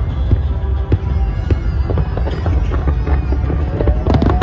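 Fireworks display: a rapid, continuous run of bangs and crackles over a deep rumble.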